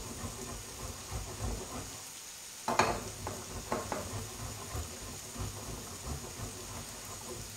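Hard cheese grated by hand on a metal grater over a bowl: fast rasping strokes, with a sharp knock about three seconds in and a few lighter knocks just after. Under it, a steady sizzle from pumpkin and sausage frying in a pan.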